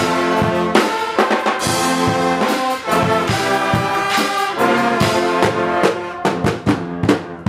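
Guggenmusik carnival brass band playing loud: trombones and trumpets over bass drum and cymbal strokes, with a string of sharp drum hits near the end.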